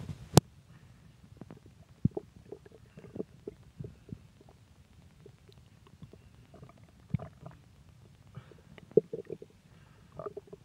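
Stomach gurgling and rumbling in scattered short gurgles, pops and squelches, with a sharp click about half a second in.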